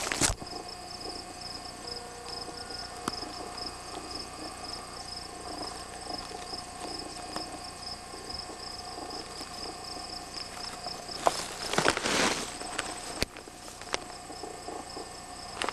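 Insects chirping in a steady, evenly pulsed high trill. About eleven seconds in comes a short burst of rustling, footsteps brushing through dry grass.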